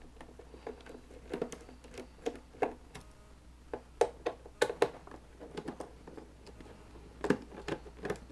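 Small screwdriver turning out screws from the plastic base of an Ikea Solig solar lamp: irregular light clicks and taps of the tool and hands on the hard plastic, with a few louder knocks.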